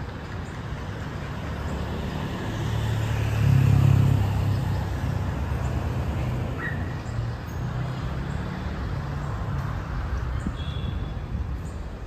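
Street traffic: a motor vehicle passes close, its engine rumble building to the loudest point about four seconds in and then fading back into a steady traffic hum.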